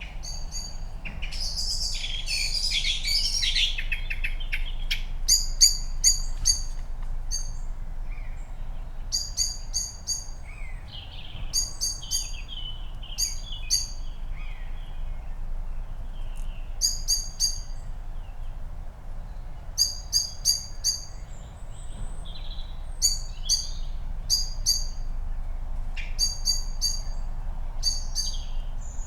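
Songbirds making alarm calls: short, high calls in quick groups of three or four, repeating about every second, with a dense burst of song about a second in. A common buzzard calls overhead, heard as fainter sliding calls beneath them.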